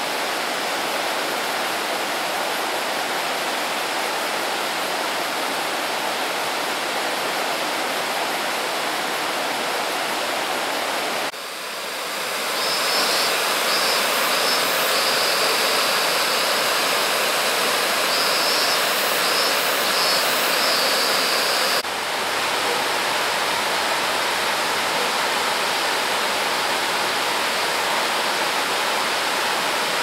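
River rapids rushing over rock ledges: a steady roar of white water, stepping louder about a third of the way through and easing back a little about two thirds through.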